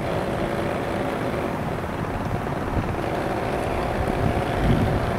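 Scratch-built RC tug boat under way: a faint steady motor hum under wind rumbling on the microphone.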